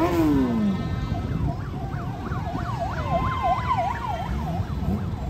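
An electronic siren warbling rapidly up and down, about three sweeps a second, over the constant rumble of motorbike traffic. A lower tone slides down in the first second.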